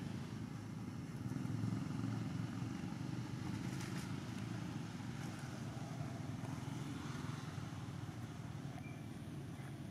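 Steady low rumble of outdoor background noise, with a faint click about four seconds in.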